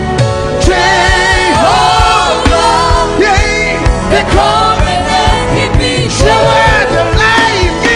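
Gospel worship music: a lead voice singing with backing vocals over a band with a steady beat.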